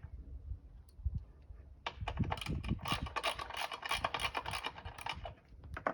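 Quick run of light metal clicks and scrapes as the back nut holding the chop saw's blade guard is turned tight, with a low knock about a second in.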